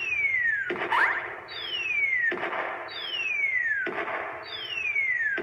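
Ghost Train ticket redemption slot machine playing its electronic win-celebration sound after a three-of-a-kind: a falling whistle-like tone repeated about every one and a half seconds.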